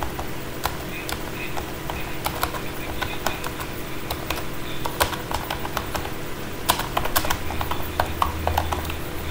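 Typing on a computer keyboard: irregular key clicks, with quick runs of keystrokes near the end, over a steady low hum.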